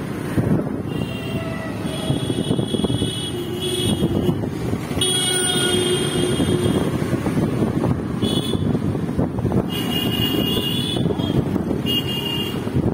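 Road traffic noise: engines and tyres rumble steadily while vehicle horns honk again and again, with a long honk about five seconds in and shorter ones around it.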